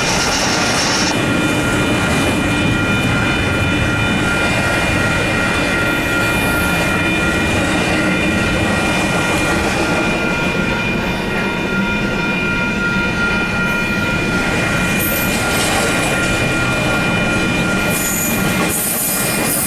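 Intermodal freight train's cars rolling past on the rails with a steady rumble and a high-pitched wheel squeal held throughout.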